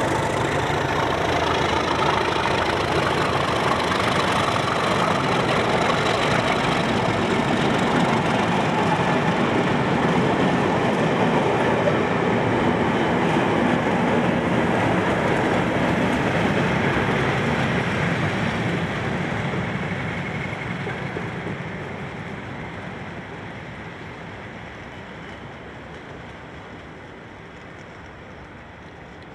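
Class 37 diesel locomotives, English Electric V12 engines, hauling a test train past, with engine and wheel-on-rail noise. The sound holds steady, then fades gradually over the last third as the train draws away.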